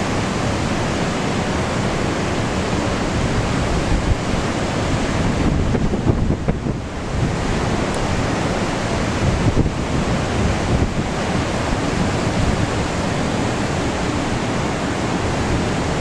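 Steady rush of heavy storm-driven surf mixed with strong wind buffeting the microphone, swelling in gusts a few times.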